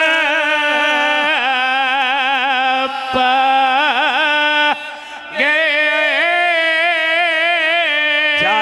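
A man chanting a Punjabi mourning lament (nauha) in a long, wavering melismatic vocal line. It breaks off briefly about five seconds in, then resumes.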